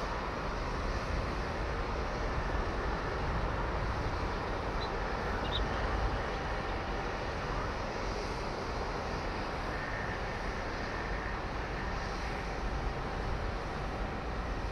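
Steady outdoor background rumble and hiss with a faint steady hum, and a few faint high chirps about five seconds in.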